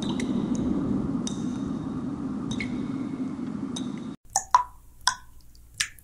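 Water dripping from a leak: single drops fall about once a second, each a short plink with a brief ringing tone, over a steady low background noise. A little after four seconds the background cuts off abruptly, and three or four more drops fall closer together, standing out clearly.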